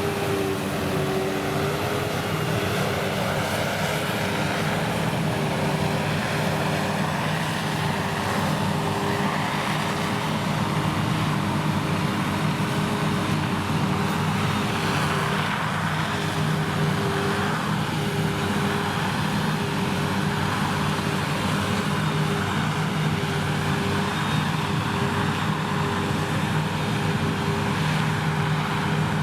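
Krone Big X 1100 self-propelled forage harvester working at full load as it chops triticale. It gives a steady, unchanging engine drone with a constant hum and the rush of the chopping and blowing crop.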